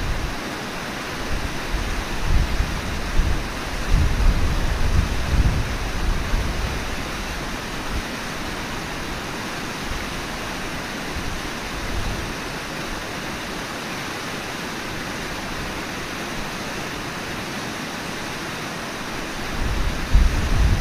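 Steady rush of flowing river water from the live cam's outdoor microphone, with wind buffeting the microphone in low gusts during the first few seconds and again near the end.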